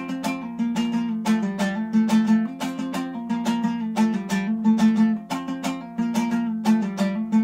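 Two-stringed dombra strummed solo in a quick, steady rhythm, a sustained low note sounding under a plucked melody.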